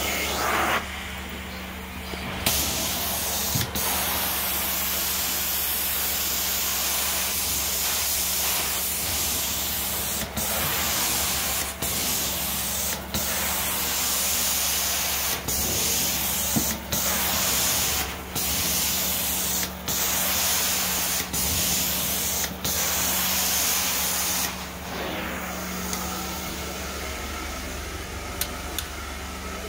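Carpet-cleaning extraction wand spraying hot cleaning solution into the carpet and sucking it back up, a steady hiss that breaks off briefly every second or two as each pass ends. The extractor machine hums steadily underneath.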